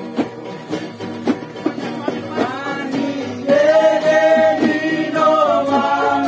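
Acoustic guitar and ukuleles strummed in a steady rhythm, with a group of men singing along. The voices come in about halfway through and grow louder.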